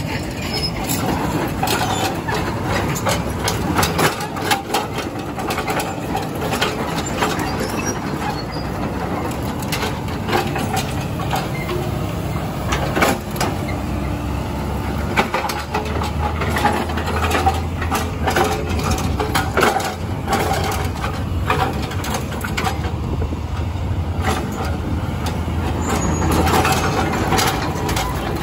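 Excavator with a hydraulic breaker attachment working on broken concrete road pavement: irregular clanks and knocks throughout, with the excavator's engine running as a steady low hum from about halfway through.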